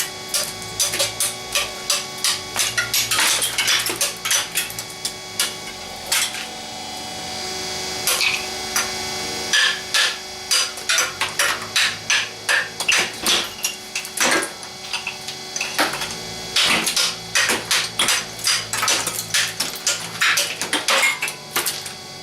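Hammer blows, several a second in quick irregular runs, with a short smoother scraping stretch in the middle.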